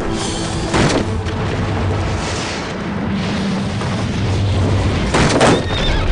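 Large boulder falling and tumbling down a rocky slope: a low, continuous rumble with loud crashing impacts about a second in and again near the end.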